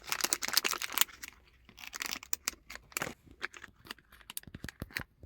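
Plastic packaging crinkling and crackling in the hands as a kit of rubber door-lock dampers is unpacked: a dense rustle for about the first second, then scattered sharp crackles that stop near the end.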